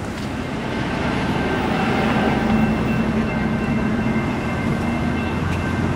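A train running past, with a steady rumble that swells about a second in and a few steady whining tones over it.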